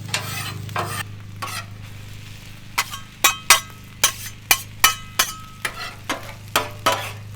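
Metal spatulas scraping and clanking on the steel top of a Blackstone griddle as fried rice with bacon and pineapple is tossed, the food sizzling. The clanks come about twice a second from about three seconds in, each with a short metallic ring, over a steady low hum.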